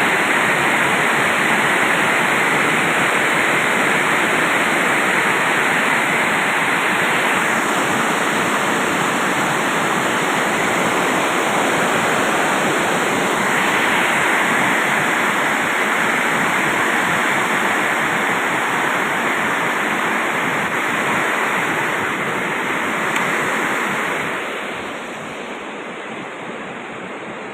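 Heavy downpour of rain, a dense steady hiss with no wind. It gets noticeably quieter about 25 seconds in.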